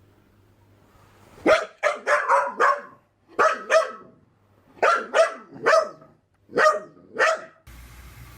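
A dog barking repeatedly in short groups of two to four barks, starting about a second and a half in.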